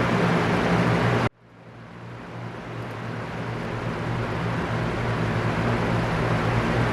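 Electric fan running steadily: an even rushing noise over a low hum. About a second in it cuts out suddenly, then fades back up to full over the next few seconds with its hum unchanged in pitch.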